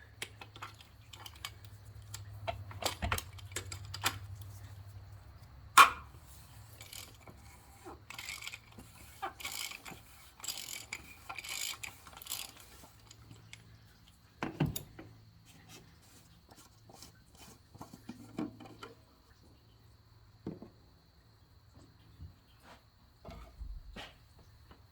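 Socket wrench clicking and metal tools knocking as the oil filter housing cap is loosened and pulled off with a 15/16 socket. Scattered clicks with one sharp knock about six seconds in, and a run of short rustles a few seconds later.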